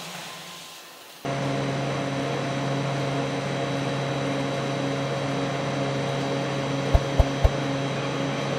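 Steady hum of running factory machinery, with several steady tones and a faintly pulsing low note, starting abruptly about a second in after quieter fading noise. A few sharp clicks come near the end.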